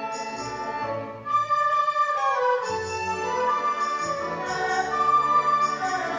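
Chinese traditional orchestra playing, with erhu and other bowed strings, winds and percussion. The music thins out briefly about a second in, then comes back fuller and louder.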